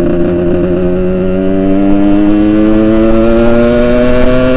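Yamaha RX-King 135cc single-cylinder two-stroke motorcycle engine running under way, its pitch climbing slowly and steadily as the bike accelerates.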